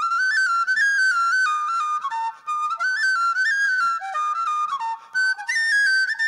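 Tin whistle played solo: a single bright melody line of quick, ornamented notes, breaking off briefly twice.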